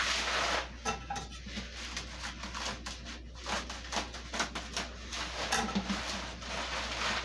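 Plastic bags and bubble wrap rustling and crinkling as they are pulled and cut off a packed bowl, with many small crackles throughout and the heaviest rustle right at the start.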